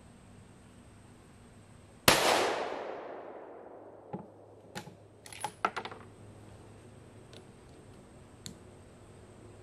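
A single 6.5 Creedmoor rifle shot from a Ruger American Predator bolt-action rifle about two seconds in, its report echoing and dying away over about two seconds. A quick run of metallic clicks and clacks follows as the bolt is cycled, with one more click near the end.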